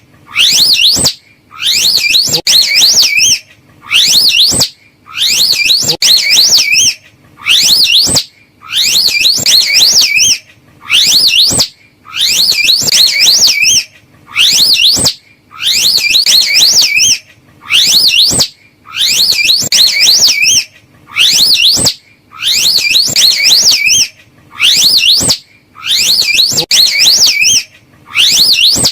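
High-pitched calls attributed to a slow loris: each call is a rapid warble of notes that sweep up and down, lasting about a second. The calls repeat about once a second with short gaps between them.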